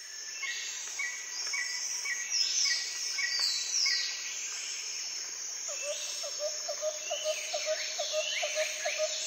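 Forest ambience: a steady high drone of insects with several birds calling in falling whistled sweeps. A short chirp repeats about twice a second in the first half. From about six seconds in, a lower note repeats about three times a second.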